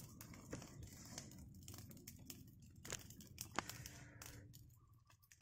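Faint crackling and rustling of dry leaves and twigs, irregular throughout, with two sharp snaps about three and three and a half seconds in.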